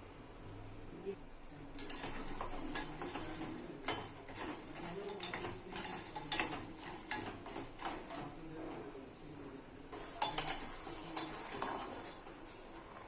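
A spoon stirring and scraping in a cooking pot or bowl, with repeated irregular clinks, starting about two seconds in and pausing briefly near the end.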